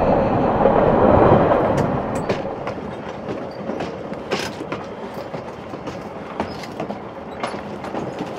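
Passenger train rolling on the rails. The noise swells loudest about a second in, then settles into a steadier rumble with irregular clicks of the wheels over the rail joints.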